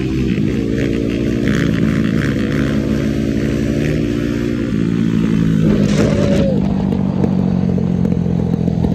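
An engine running under way on the road, its pitch holding and then shifting in steps a few times, over the rush of wind and road noise.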